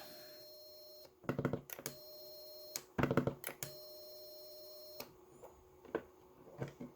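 Steady beeping tone, typical of a CW transceiver's transmit sidetone, sounding three times for about a second each as the rig is keyed band after band. Clusters of clicks and knocks from handling the rig come between the beeps, with a few single taps near the end.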